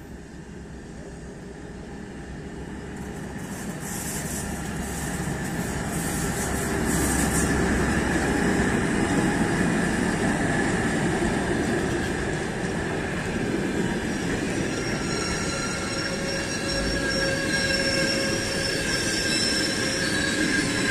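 A Škoda-built ChS7 electric locomotive and its passenger coaches roll past on the rails, the rumble growing louder as the locomotive comes close and passes. From about two-thirds of the way through, a steady high-pitched squeal from the wheels and brakes joins in as the train slows to arrive.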